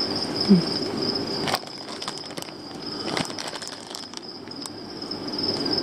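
Plastic fish bags and box liner rustling and crinkling as they are handled, with scattered crackles, over a steady high-pitched whine.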